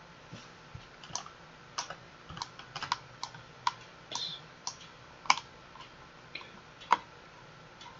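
Irregular sharp clicks of a computer keyboard and mouse, about fifteen in all, the loudest a little past halfway and near the end.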